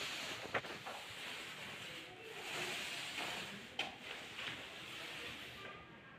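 Paint roller on a long pole being rolled over a wall: a soft hissing swish that swells and fades with the strokes, with a few light clicks.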